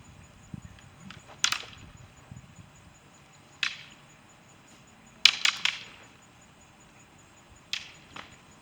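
Practice weapons clacking together in a sparring exchange: separate sharp hits, then a quick flurry of three or four about five seconds in, and two more hits near the end.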